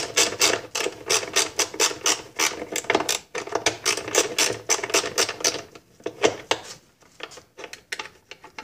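Rapid, even clicking of a tool working out the inner screws that hold the halves of a Johnson 9.5 HP outboard's housing together, several clicks a second. After about six seconds it thins to a few scattered clicks.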